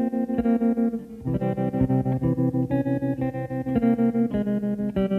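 Background music: a slow electric guitar played through an effects unit, its chords pulsing rapidly and evenly, leading into a song.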